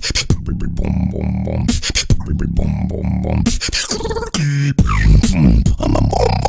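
Human beatboxing into a close microphone: a steady groove of vocal kick, snare and hi-hat clicks over a held low hummed tone, with a short pitched vocal run about four seconds in.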